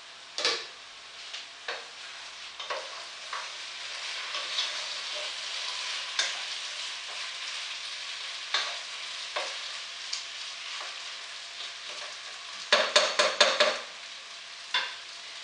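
Sliced potatoes sizzling in hot duck fat in a pot on high heat, the sizzle swelling after the first few seconds, while a wooden spatula stirs them with scattered knocks against the pot. A quick run of about six knocks near the end is the loudest part.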